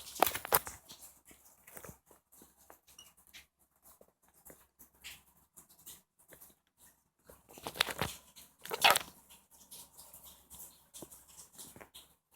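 Rosy-faced lovebird mimicking a human sneeze: a sharp, noisy burst at the start and two more about eight and nine seconds in, with faint scattered clicks between.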